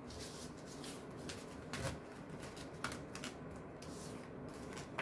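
Tarot cards being gathered up off a table mat and stacked by hand: soft sliding rustles with a few light taps of card against card.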